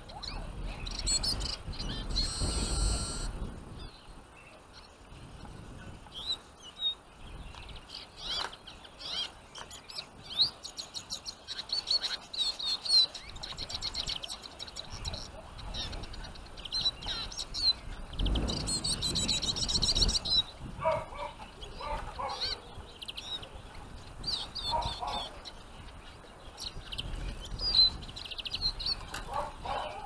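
Small finches, Eurasian siskins and goldfinches, chirping and calling at a wooden trap cage: many short high calls in quick runs. Two stretches of low rushing noise come through, a couple of seconds in and again past the middle.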